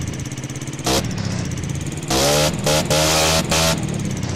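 Yamaha Fino scooter's single-cylinder four-stroke engine idling, blipped once about a second in, then given several quick throttle blips in a row in the second half.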